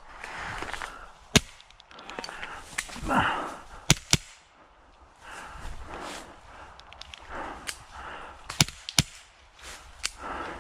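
Airsoft gunfire: about six sharp single cracks at irregular intervals, with softer rustling between them.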